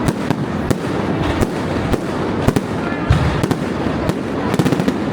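Fireworks display: a continuous rumble of shell bursts with many sharp cracks and bangs at irregular intervals, thickening into a quick cluster of crackles near the end.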